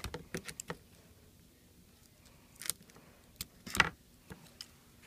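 Light clicks and taps of small hand tools against iPad 2 parts during disassembly, several in quick succession early on, with a louder clatter nearly four seconds in.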